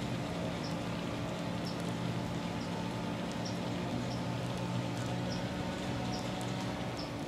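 Young chickens, about eleven weeks old, giving short high peeps roughly once a second over a steady low hum.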